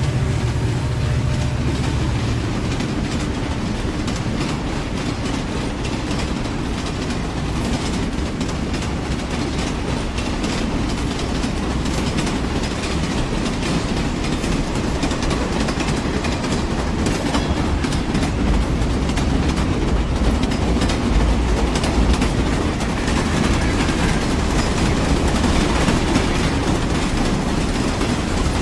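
Indian Railways train running steadily on the track, with a constant low rumble and wheels clattering over the rail joints.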